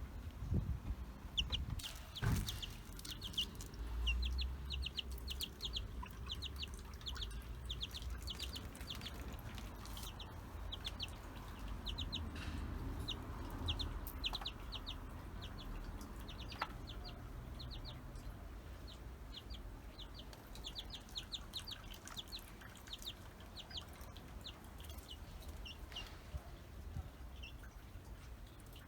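Nagoya Cochin chicks peeping: quick runs of short, high calls, with a few scattered knocks.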